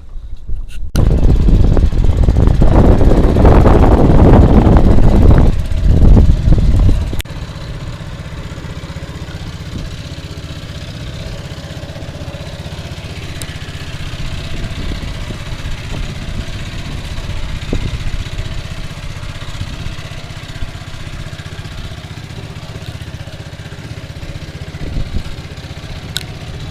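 Small fishing boat's engine running steadily with a low drone. A loud rushing noise covers it for the first six seconds or so.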